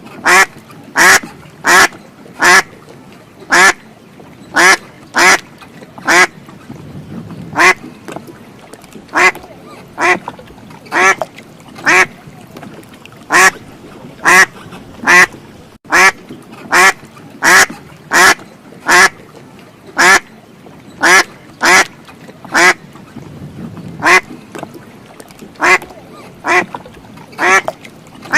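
A duck quacking over and over, short loud quacks coming about one to two a second, sometimes in quick pairs, throughout.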